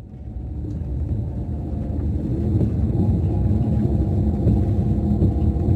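Scania DC13 inline-six diesel of a Scania K410 double-decker coach, heard from inside the lower deck while under way: a steady low drone that fades in over the first couple of seconds and then holds even.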